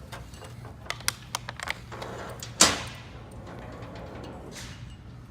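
A handful of light clicks and taps as engine valves are handled and set back into the cylinder head, then one sharp knock about two and a half seconds in.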